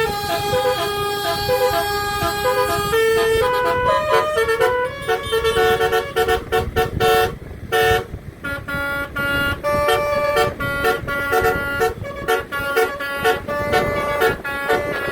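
A tour bus's telolet musical horn playing a tune of steady horn notes that jump from pitch to pitch, much of it quick repeated notes. It breaks off briefly about halfway through.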